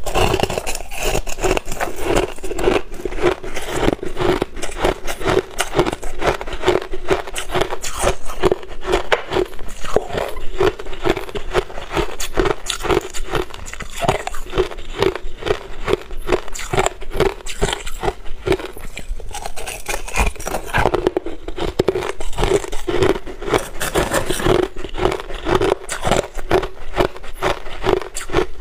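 Crushed ice being bitten and chewed close to the microphone: continuous crunching and crackling, with a steady chewing rhythm of about two chews a second.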